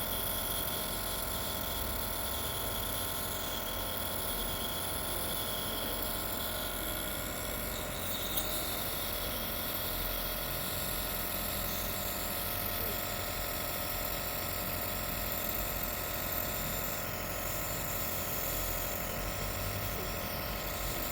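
Steady hum of a small electric motor with several fixed tones, unchanging throughout, with one brief click about eight seconds in.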